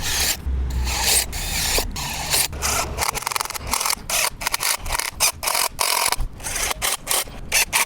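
A drill with a countersink bit cutting countersinks into bolt holes in a wooden 2x2, in many short, repeated bursts.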